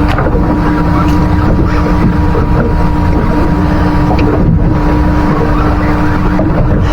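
Boat motor running steadily with a constant hum, under wind and water noise.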